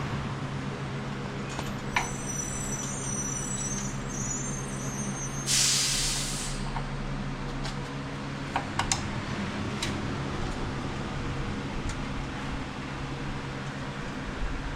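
A machine runs steadily with a low, even hum. About five and a half seconds in comes one loud hiss lasting about a second, and there are a few light clicks and taps.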